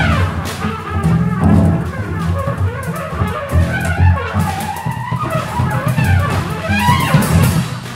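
Contemporary improvised trio music: a double bell trumpet playing sliding, bending notes, rising in pitch near the end, over low double bass notes and scattered percussion taps.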